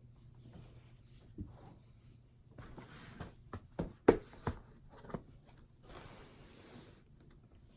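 Handling noises from a laptop unboxing: rustling of packaging and several light knocks and clicks, the loudest about four seconds in.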